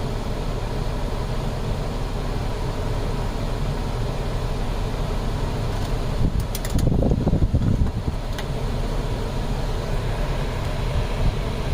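2010 Chrysler Sebring's A/C blower fan running steadily, blowing cold air from a freshly recharged system, with the engine idling underneath. About seven seconds in, a brief rumble with a few clicks.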